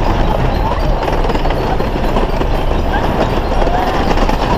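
Wooden roller coaster train running along its track at speed, a loud, steady rumble and rattle of the cars on the wooden track.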